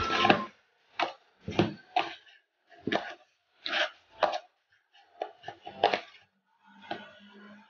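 Donut dough being kneaded and pressed by hand in a plastic bowl: a series of short, soft thumps and slaps about every half second, with the bowl knocking as it is turned.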